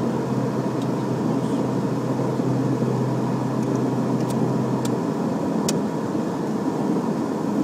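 Twin Pratt & Whitney PT6A turboprop engines of a Beechcraft King Air B200 running at low ground power, heard inside the cockpit as a steady drone. A low hum within it stops about five seconds in, and a few sharp clicks sound in the middle.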